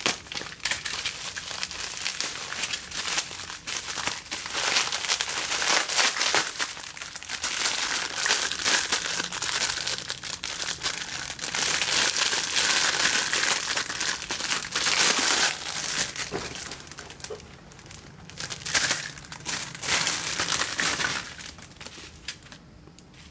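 Thin clear plastic packaging bag crinkling and crackling as it is cut open with a utility knife and handled, a continuous mass of sharp little clicks and rustles that dies down about two seconds before the end.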